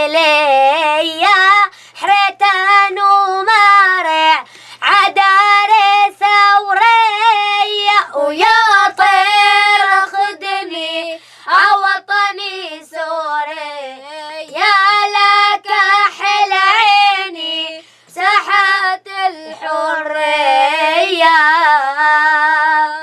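A child singing an Arabic nasheed solo and unaccompanied, in phrases of long held notes with vibrato and ornamented turns.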